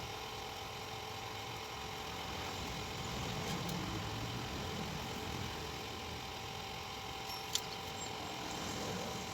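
A steady machine hum with several steady tones in it, and a single sharp click about seven and a half seconds in.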